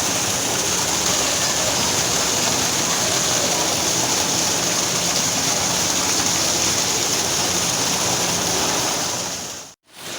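Waterfall rushing steadily, a constant hiss-like roar of falling water; it drops out briefly near the end.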